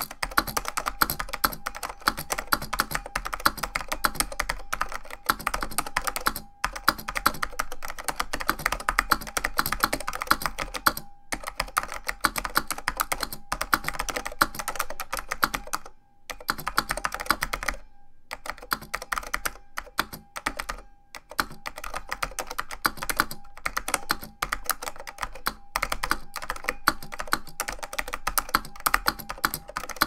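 Zenith Data Systems Z-150 XT keyboard with Alps key switches being typed on quickly: a dense, continuous stream of key clicks, broken by short pauses every few seconds.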